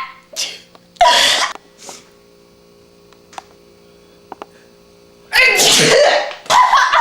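Loud sneezes: a short one about a second in, then a longer, drawn-out one about five and a half seconds in, followed closely by another short burst near the end.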